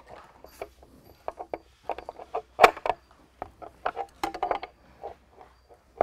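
Open-end wrench clicking and clinking against a nut as the nut is loosened on a carriage bolt, in a run of irregular short metal clicks, the sharpest about two and a half seconds in.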